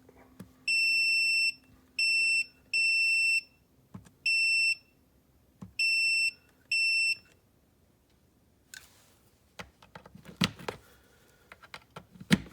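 Multimeter continuity beeper sounding six times, a steady high tone broken into beeps of uneven length as the test leads make and break contact. Then a few seconds of clicks and knocks from handling the leads.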